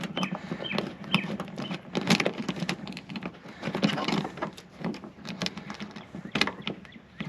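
Irregular clicks, taps and scraping of hardware and plastic being handled while a mud flap is fitted to a truck's wheel well.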